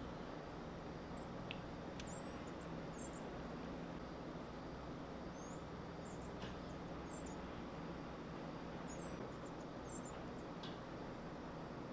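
Faint, high, short chirps scattered irregularly over a steady low hum, like small birds calling.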